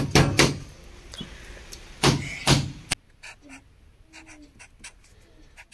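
Loud knocks or bangs, two near the start and two more about two seconds in, then only faint light tapping after the sound drops away abruptly about three seconds in.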